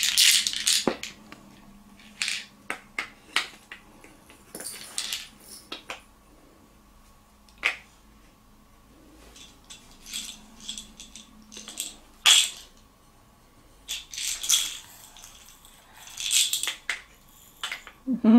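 Wooden toy blocks and cylinders clacking and rattling as they are picked up, set down and stacked: an irregular string of knocks with short pauses between them.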